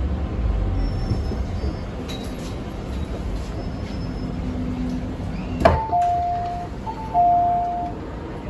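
MTR M-train standing with a low steady hum; a little over halfway a sharp click, then two long electronic beeps, each about a second long on two steady pitches, typical of the train's door-closing warning.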